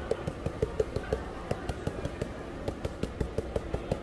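A rapid run of light clicks or taps, about five a second and slightly uneven, over a low steady background hum.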